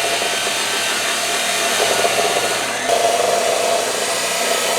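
Power saw cutting through 2-by-3-inch rectangular tubing with 1/8-inch walls: a steady, loud cutting noise.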